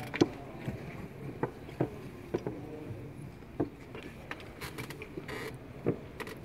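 Wooden chess pieces being set down and chess clocks being pressed: a dozen or so sharp clicks and knocks at uneven intervals over a low background hubbub, the loudest just after the start.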